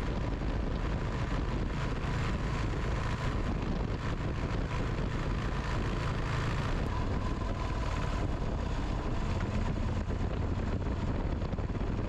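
Moto Guzzi V-twin motorcycle running at a steady cruising speed, its low engine drone under a steady rush of wind noise on the microphone.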